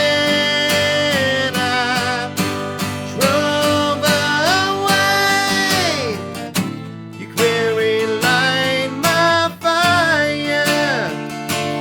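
Acoustic guitar strummed steadily, with a man's voice singing long held notes that waver in pitch.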